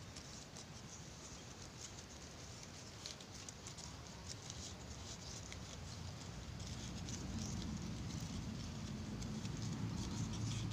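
Fresh coconut leaf strips rustling and crackling faintly as hands weave them and pull one through the others, in short scattered ticks. A low rumble grows in the background over the second half.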